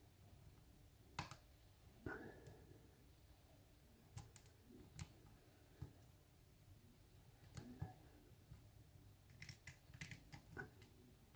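Faint, scattered clicks and ticks of a hook pick lifting pins inside a pin-tumbler challenge lock held under a tension wrench, with a quick run of clicks near the end.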